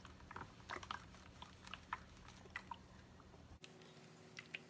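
Faint, scattered small clicks and rustles of hands handling cloth, over a low steady room hum that changes abruptly near the end.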